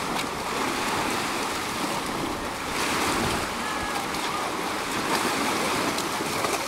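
Small waves washing steadily onto a sandy shore, with a dog splashing as it wades and paws at the water in the shallows.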